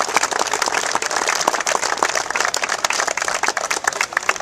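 A small crowd applauding, with many hands clapping densely and steadily.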